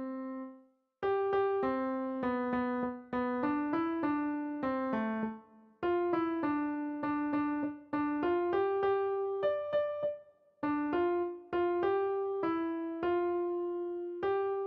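Background music: a slow solo piano melody of single notes, about two or three a second, with a few short breaks between phrases.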